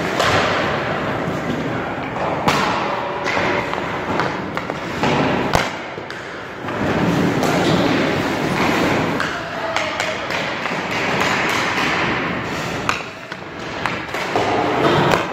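Ice hockey shooting drill: sticks striking pucks and pucks thudding into a goalie's pads, with skates scraping the ice in between. A few sharp cracks stand out, the sharpest about five and a half seconds in.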